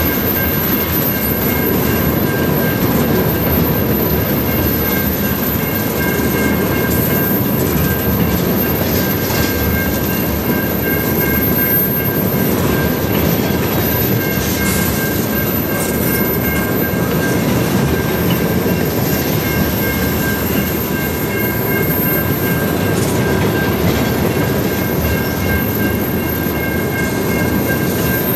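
Freight train of tank cars rolling past at steady speed: a continuous rumble and clatter of wheels on the rails, with a steady high-pitched ringing tone over it.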